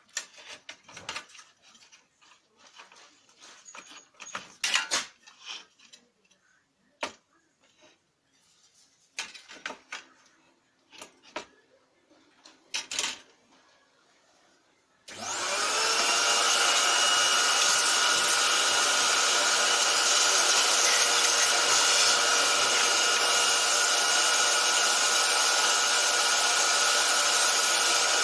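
Scattered clicks and knocks from handling the Lexmark X364dn laser printer, then about halfway through its drive starts up abruptly and runs loud and steady with a grinding whine.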